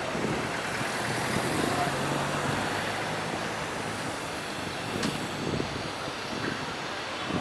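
Street traffic noise, with a vehicle engine running steadily from about a second in until about four seconds in, and a single sharp click about five seconds in.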